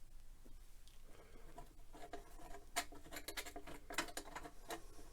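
A popsicle stick scratching and clicking against wood as it works yellow wood glue under lifted veneer. Quiet for the first two seconds, then a busy run of quick scrapes and taps, some with a short squeak.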